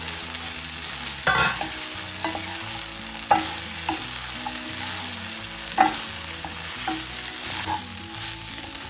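Fried cauliflower being stirred and tossed through a sizzling sauce of peppers and onions in a stainless steel pan. A steady sizzle runs underneath, and the spatula and spoon knock and scrape against the pan about half a dozen times. This is the stage where the fried gobi is coated in the Manchurian sauce.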